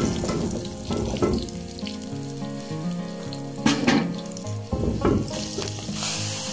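Hot oil sizzling in a pan as onion slices, whole dried red chillies and cumin fry for a tadka, with a few knocks of the spoon. About six seconds in, a brighter, louder hiss starts as the hot tempering is poured onto the daal.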